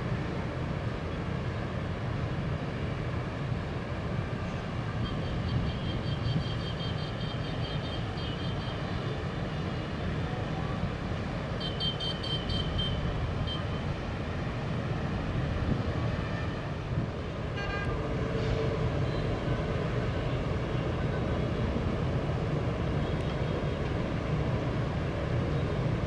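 Steady city traffic rumble, with a high-pitched pulsing tone, like a horn, sounding twice: for a few seconds about five seconds in, and again briefly about twelve seconds in.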